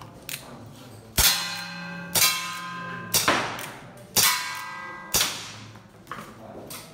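Five shots from a CO2 revolver about a second apart, each pellet clanging on a hanging enamelled metal pan target that rings on briefly. Two fainter knocks follow near the end.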